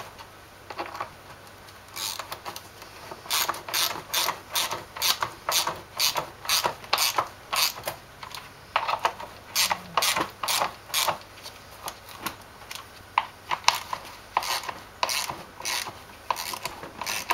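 Hand ratchet clicking in quick runs of strokes with short pauses between them, as 8 mm bolts are run into a plastic condenser fan shroud. The first couple of seconds are quieter, before the clicking starts.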